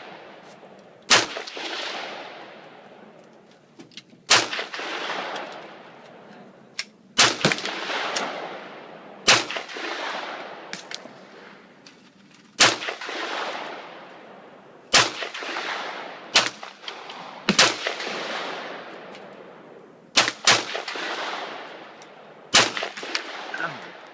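AR-15 rifle firing about ten single shots at a slow, steady pace, two to three seconds apart, each crack followed by a long echoing tail.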